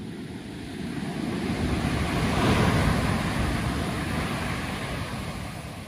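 Heavy surf from a big swell: a wave dumping on the shore and rushing up the beach, the roar swelling to a peak about halfway through and then fading.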